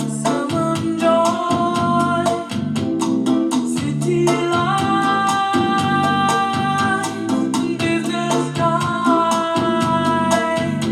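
A song with singing, guitar and a steady beat played through a Philips MLED920 TV's built-in speakers, with held melodic lines over a moving bass.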